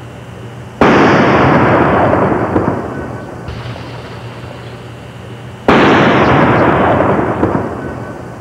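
Two loud blasts from large firecrackers, "Pineapples" that the uploader believes were quarter sticks of dynamite, about five seconds apart. Each is a sudden bang followed by a couple of seconds of slowly fading noise; the second blows apart a stuffed animal.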